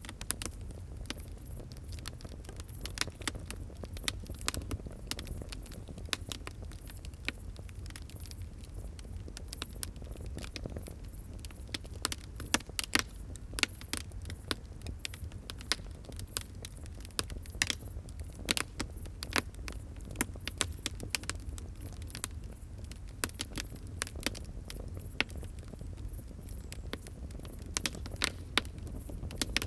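Wood fire crackling: many irregular sharp pops and snaps, a few louder ones, over a steady low rumble.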